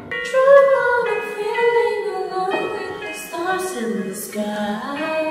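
Two women singing a song together from sheet music, with a musical accompaniment underneath.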